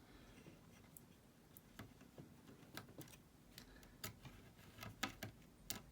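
Faint, irregular small clicks and taps, about a dozen, of a small screwdriver and tiny screws being handled against a computer's metal parts.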